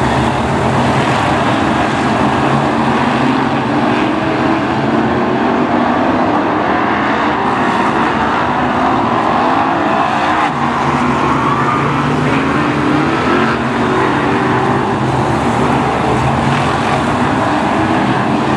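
Several BriSCA F1 stock cars' V8 engines running together, loud and continuous, with the pitch rising and falling as cars pass.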